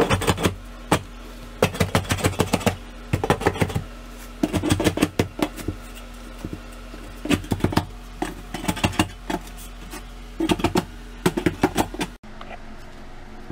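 Hand trowel tapping and scraping as dry-pack mortar is packed down along the edge of a shower pan, in quick bursts of taps with short pauses between. A steady low hum runs underneath.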